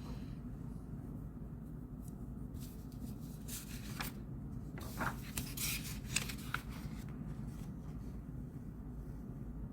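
Desk sounds of someone studying: pen scratching on paper and a few brief paper rustles, loudest in the middle, over a steady low room hum.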